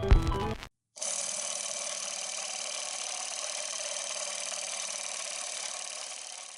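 Guitar music cuts off just under a second in. After a brief gap comes a steady, fast whirring clatter of a Super 8 film transport mechanism running, fading out near the end.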